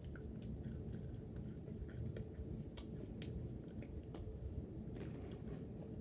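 A person chewing food close to the microphone: small wet mouth clicks and smacks scattered irregularly over a steady low hum.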